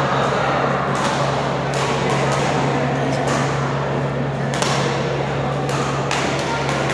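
Badminton rackets smacking shuttlecocks at irregular moments over a steady murmur of voices and a constant low hum.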